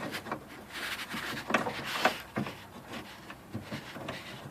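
Scattered light clicks and taps of a metal socket and extension being worked through an access hole in a car door's inner panel.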